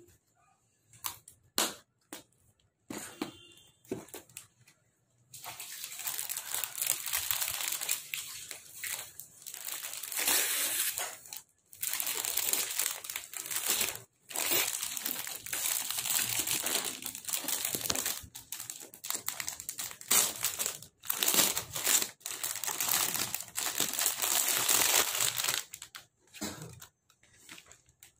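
Clear plastic packaging around a folded silk saree crinkling loudly as it is handled and opened, in long runs with short breaks, stopping shortly before the end. A few sharp clicks of scissors and cardboard box handling come first.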